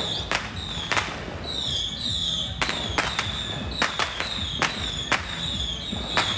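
Sharp bangs at a quick, fairly even pace, about two or three a second. Each bang is followed by a high ringing tone that falls in pitch.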